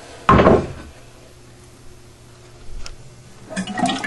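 Toilet trip handle pushed down with a single loud clunk as the flush is set off. Near the end, the last water starts to rush and gurgle out of the emptied tank.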